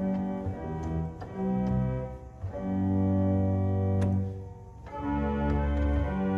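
The Gambe 8' string stop of an 1890 Roques pipe organ, on its second manual (Recit), playing a slow sequence of held chords with brief gaps between them. A short click sounds about four seconds in.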